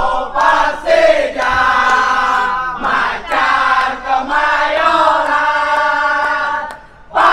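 A crowd of football supporters singing a chant together, many voices in unison, with a brief pause just before the end.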